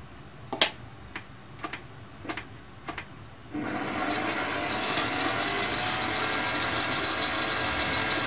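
A metal spoon clinks against a steel mixing bowl six times as flour is spooned in. About three and a half seconds in, a stand mixer's motor starts and runs steadily, its dough hook kneading bread dough in the bowl.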